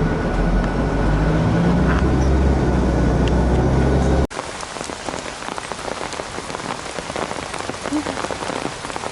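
About four seconds of loud low rumble that cuts off suddenly, followed by heavy rain pattering steadily, with many close individual drops, as on an umbrella overhead.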